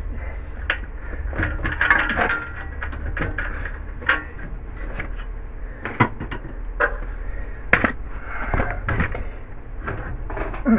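Irregular metallic clinks, knocks and rattles of hand tools and metal parts against a pressure washer's frame while its engine mounting is worked on.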